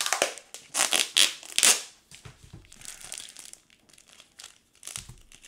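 Cardboard shipping box being opened and its packing handled: several loud rustling, scraping bursts in the first two seconds, then fainter handling noise.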